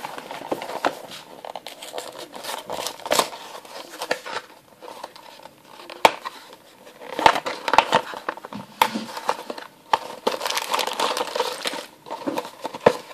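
A small cardboard toy box being opened by hand: the flap is pried and pulled open with irregular cardboard scrapes and crackles, and a sealed plastic bag crinkles as the contents are taken out, busiest in the second half.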